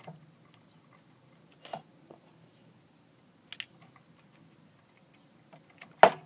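A few scattered sharp clicks and light knocks from handling, four of them clear, the loudest near the end.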